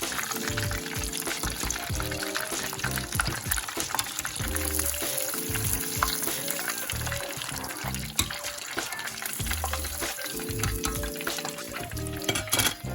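Breaded plaice fillets deep-frying in hot oil: a dense, steady crackling sizzle, with background music over it.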